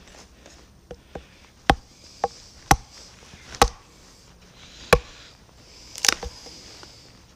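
Small pieces of pine firewood being chopped for a twig stove: a series of sharp, irregular knocks of a blade striking wood.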